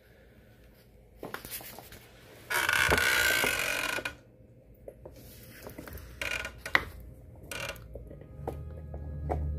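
A puppy chewing and crunching a plastic bottle: irregular crackling clicks, with a louder crinkling crunch about two and a half seconds in that lasts about a second and a half.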